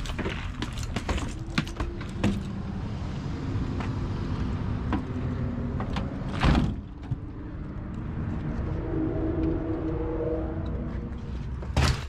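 Hand tools and a tool bag clinking and rattling as they are handled in a work van, over a steady low rumble. A van door bangs shut about six and a half seconds in, with another loud bang near the end.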